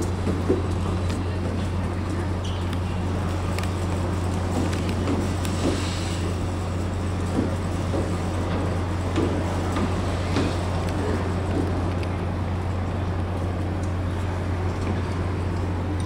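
Steady low rumble of outdoor city traffic ambience, even in level throughout, with a few faint scattered clicks and knocks.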